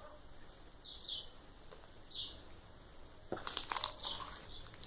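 Clear homemade slime being handled, giving sharp clicks and crackles that start about three seconds in. Faint bird chirps sound twice before that.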